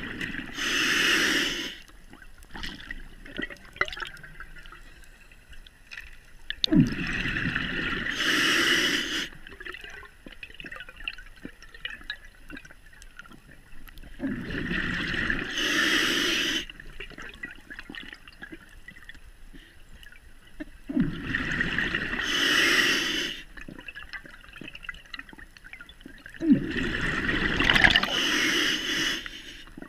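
Scuba diver breathing underwater through a regulator: five bubbling exhalations, one about every six to seven seconds, each lasting two to three seconds, with quieter stretches between.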